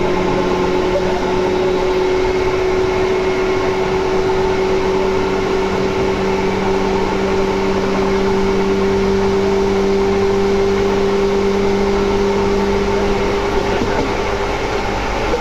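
Seibu 2000 series electric train running, heard from inside the car: a loud, steady whine from the traction motors and gears over the rumble of the wheels on the rails. The whine creeps up slightly in pitch, then holds level, as at cruising speed, and a lower hum under it fades out near the end.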